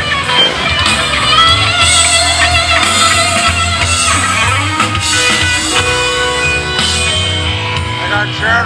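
Live classic rock and blues band playing amplified, with guitar up front and a steady drum beat.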